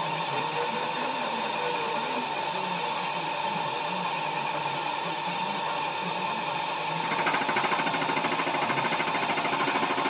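Milling machine spindle running with the air line blowing a steady hiss. About seven seconds in, the milling cutter bites into the steel plate and a rapid rhythmic cutting chatter starts as it skims off the mill scale.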